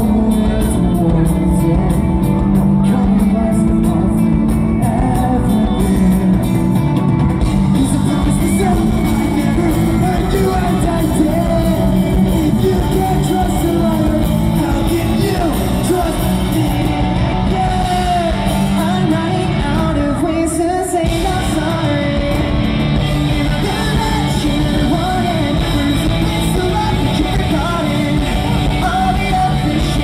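Live band performing a song: lead vocals over electric guitars, heard from the audience in a large arena hall.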